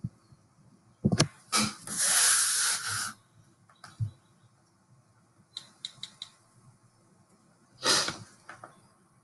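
Handling noises of a tablet in a folio case on a table: a knock about a second in, a hissing rustle lasting about a second, then light taps and clicks on the tablet and its case, with another short rustle near the end.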